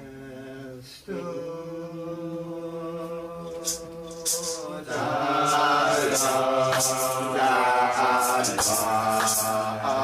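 Rastafari chant: voices holding long sung notes, which grow louder and fuller about five seconds in, with sharp percussion strikes coming in from about the middle.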